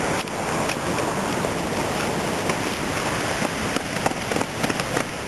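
Steady rushing of wind on the microphone, with scattered footsteps on asphalt.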